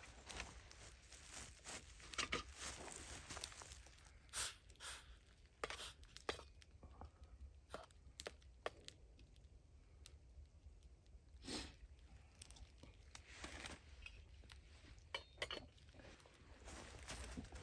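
Faint, scattered clinks and scrapes of a fork stirring instant mashed potatoes in a small stainless-steel pot, with a metal lid set on the pot.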